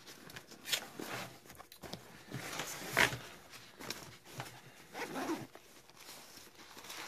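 Zipper on a black nylon bag pouch being worked, with the fabric rustling as hands handle the pouch: a series of short rasping pulls, the sharpest about three seconds in.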